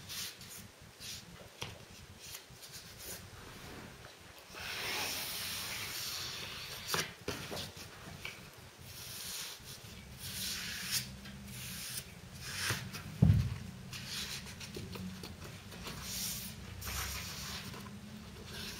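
Lining paper rustling and being scraped flat against the wall with a paper-hanging brush: a run of short brushing scrapes and crinkles. One dull thump about two-thirds of the way in.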